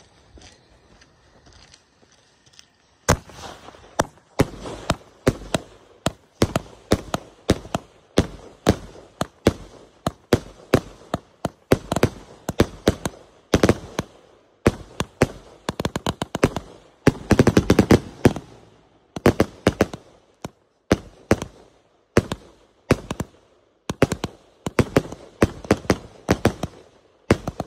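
A long, irregular run of sharp bangs starting about three seconds in, some single and some in quick clusters, continuing without a break.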